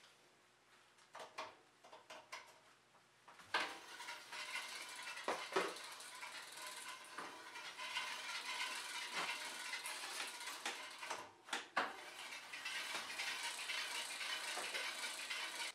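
Rear bicycle wheel spinning with its disc rotor rubbing against the mechanical disc brake caliper, a steady scraping hiss with faint freewheel ticking. The rub comes from the caliper touching the rotor because the clamp-on adapter mount has shifted. A few clicks come first, and the steady rubbing starts about three and a half seconds in.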